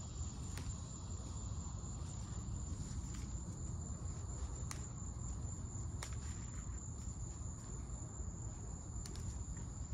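Crickets trilling steadily at a high pitch over a low steady rumble. A few faint rustles and snaps come from tomato foliage being handled and pulled off.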